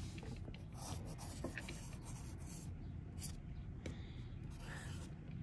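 Faint scratching of a wooden pencil on paper, drawn in short curved strokes.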